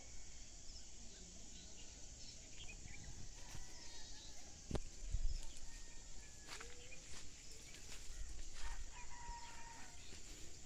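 Faint distant rooster crows and other bird calls over a steady outdoor hiss, with low gusts of wind rumbling on the microphone around the middle and again near the end.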